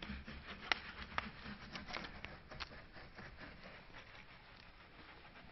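A small brush scrubbing solvent over embossed metal to lift oxidation, a faint rubbing, with a few sharp clicks in the first three seconds.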